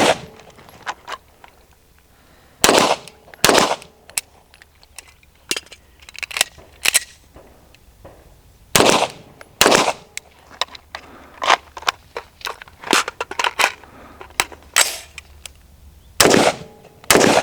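Gunfire from a timed rifle and handgun transition drill: four pairs of loud shots, each pair under a second apart and spread across the run, with many fainter pops and clicks between them.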